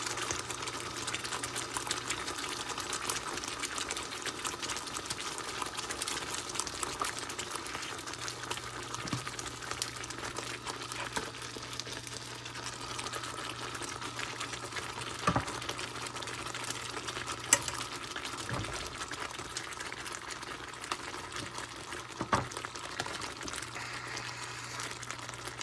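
Korma gravy thinned with milk bubbling at the boil in a pan, with a steady crackling hiss. A few sharp clinks of metal tongs against the pan come as chicken pieces are lowered in, over a steady low hum.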